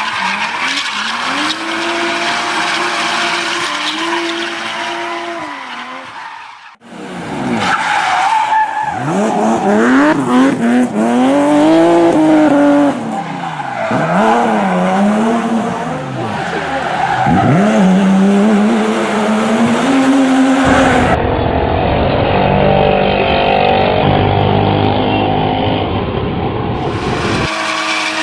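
Vehicle engine sounds revving up and down, the pitch rising and falling in repeated sweeps, with tyre-skid-like noise. A steadier engine tone comes first, and a deeper, muffled rumble comes near the end.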